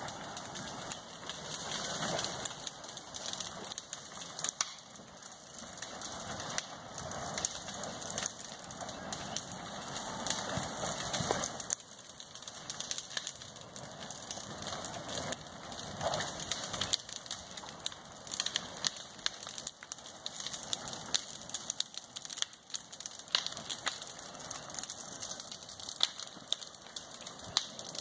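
Vegetation burning at the edges of an expanding lava pond: irregular sharp crackles and pops.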